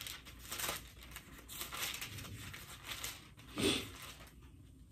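Bible pages rustling as they are leafed through, a series of soft page turns with one louder rustle about three and a half seconds in.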